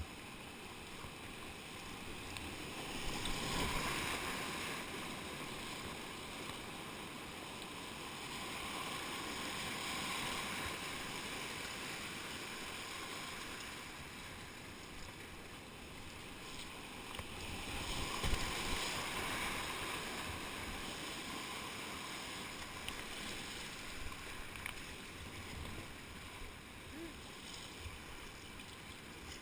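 Whitewater rapids rushing around a kayak, heard from on the boat, swelling louder about three seconds in and again around eighteen seconds as it runs through rougher water. A few small knocks near the end.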